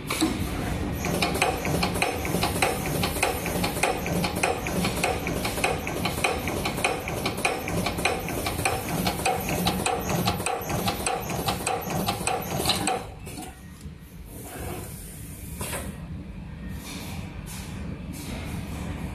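FFC cable terminal crimping machine working, a fast even run of clicking strokes, several a second, as it crimps terminals onto the 1.27 mm pitch flat cable. The strokes stop about thirteen seconds in, and the sound drops to a quieter background with a few scattered clicks.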